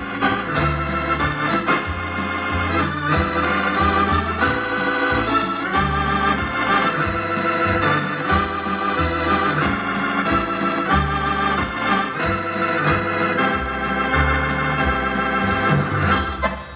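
Wersi electronic home organ played on two manuals: sustained chords over a moving bass line, with a steady percussive beat.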